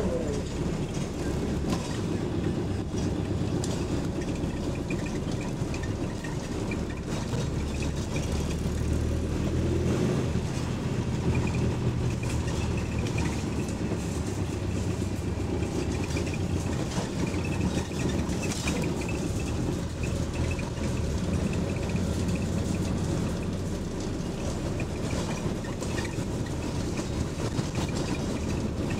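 Bus engine running with a steady low drone, heard from inside the moving bus. The drone rises a little about ten seconds in, over a continual rattling of the bus's loose interior parts.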